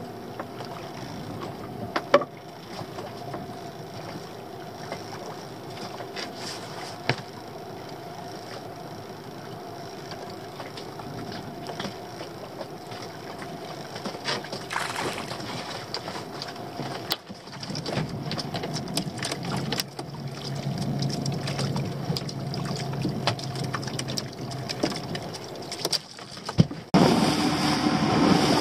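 Small open fishing boat on the sea: a steady background with water against the hull and a few sharp knocks. About 27 seconds in it cuts to the boat under way, with outboard motor and rushing wash.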